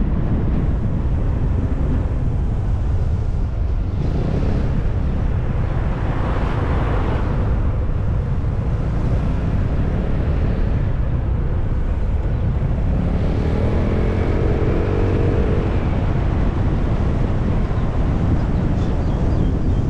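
Riding a motor scooter: wind buffeting the microphone over the scooter's engine noise. About two-thirds of the way in, an engine note rises briefly.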